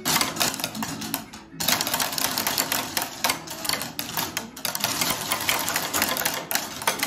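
Many wooden rhythm sticks clicking and clacking as several children tap them together and strike them on a tabletop, a fast, uneven clatter with a short lull about a second and a half in.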